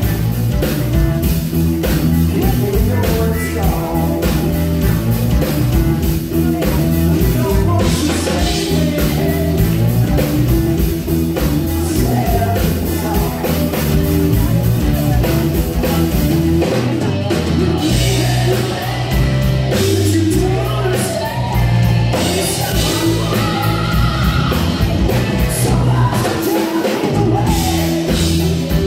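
Live rock band playing through a PA: electric guitar, bass guitar, drum kit and keyboards, with a singer's voice.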